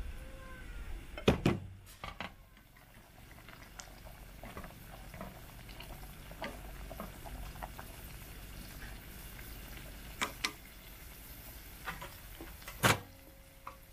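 Vegetable soup bubbling at a boil in a stainless steel pot as greens are stirred in with chopsticks, with a few sharp knocks, the loudest about a second in and near the end.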